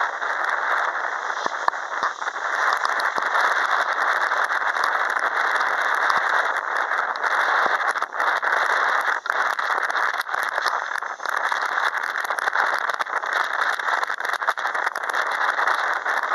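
Boeing C-40A Clipper's CFM56-7 turbofan engines running as a steady rushing roar, with frequent crackles through it.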